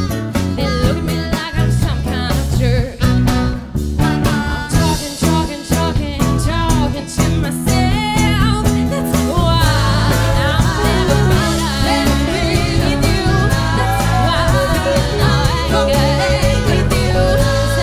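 Live blues band: a woman sings lead over drums, electric and acoustic guitars, bass and keyboard. About halfway through, the band fills out into a denser, more sustained sound.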